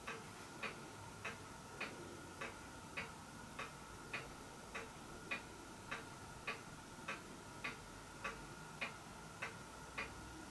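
Clock ticking steadily and faintly, a little under two ticks a second, over a faint steady high hum.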